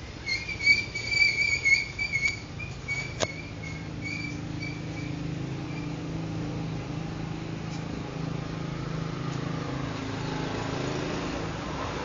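Budgerigars chirping close to the microphone: a fast run of short, high chirps for about five seconds, with a sharp click about three seconds in. Then the chirping stops and a steady low hum is left.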